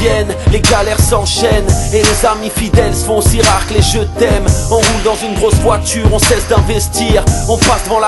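Hip hop music with a steady beat.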